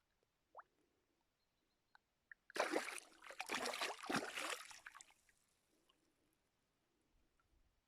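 Water splashing and sloshing for about two and a half seconds, starting a little after two seconds in and then dying away, with a few faint chirps around it.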